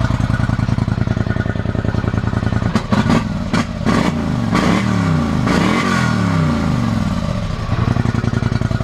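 A 2013 Polaris Scrambler 850's parallel-twin engine running on its stock exhaust. It idles, is revved up and down several times from about three seconds in, then settles back to idle near the end.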